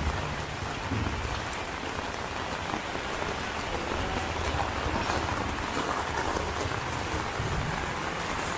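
Heavy rain pouring steadily onto a wet street, a dense, even hiss with no let-up.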